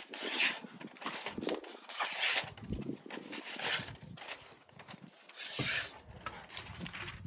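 Knife blade drawn through a knife sharpener in about five short scraping strokes, spaced unevenly a second or two apart.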